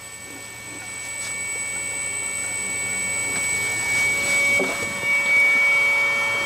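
Small CMG induction motor running on a Powtran variable-frequency drive, with a steady high-pitched electrical whine over a low hum. It grows louder as the motor is brought up to full speed.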